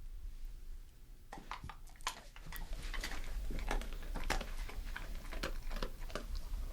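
A dog crunching and chewing a treat: quick irregular crunches and clicks starting about a second in.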